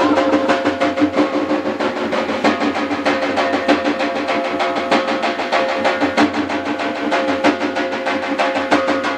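Music with a fast, even drumbeat over steady held tones.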